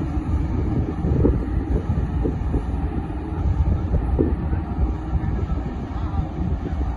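Road roller's diesel engine running with a steady heavy low rumble.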